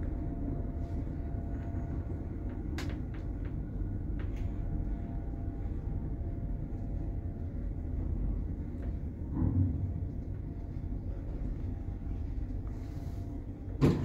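A 1986 passenger lift running: a steady low rumble with a faint hum, light clicks, and a short knock about two thirds of the way through. A sharp clack comes right at the end.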